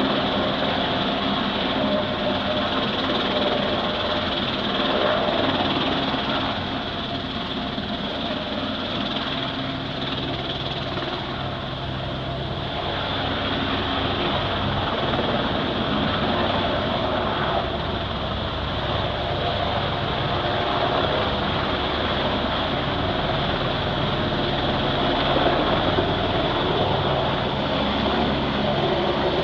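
Helicopter engine and rotor running steadily, a continuous mechanical noise with a low hum, easing slightly for a few seconds in the middle before building again.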